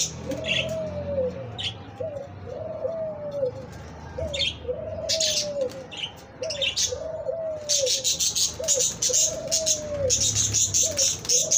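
White dove cooing over and over from the nest, each call a short note followed by a longer arched coo, about every second and a half: the male's nest call to the female. High chirps of other small birds come and go alongside, thickest in the last few seconds.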